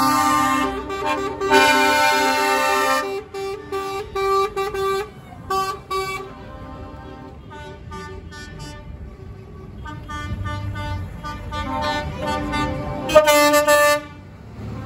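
Truck air horns sounding as lorries drive past: a loud blast of several notes at once for about three seconds, then a run of short toots, fainter horn blasts in the middle, and another loud blast near the end. Diesel engines run underneath.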